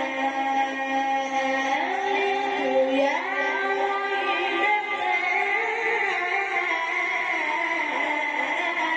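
A man's voice in melodic Quran recitation, holding long drawn-out notes. The pitch climbs in steps about two seconds in and again around three seconds in, then settles into one long, steady held note.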